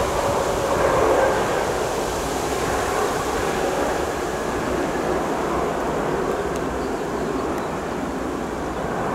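Lufthansa Airbus A319's jet engines in reverse thrust during the landing rollout, a steady rushing jet noise that eases slightly after the first second or so as the aircraft slows.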